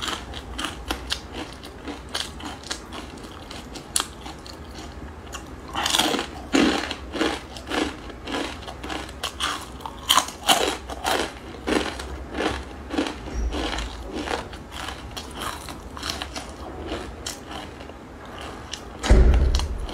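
Crispy fried instant-noodle curls being bitten and chewed close to the microphone: a dense run of sharp crunches and crackles. A loud low thump comes near the end.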